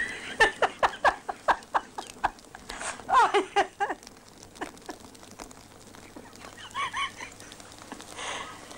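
Chicken clucking: a quick run of short, falling clucks, then a louder squawk about three seconds in, and a few more clucks later on.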